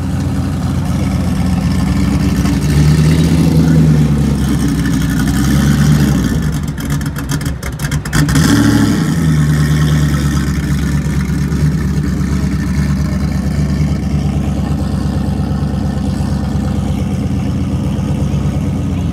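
Turbocharged Ford V8 drag car engine idling with a lumpy note, its pitch stepping up and back down a few times as it is revved lightly. A brief dip with a few sharp crackles comes about halfway through.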